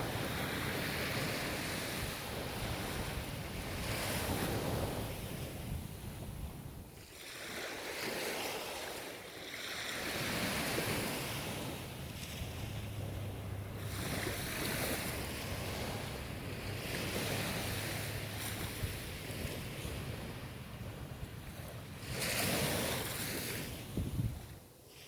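Ocean surf breaking and washing up the shore, the rush swelling and fading every few seconds.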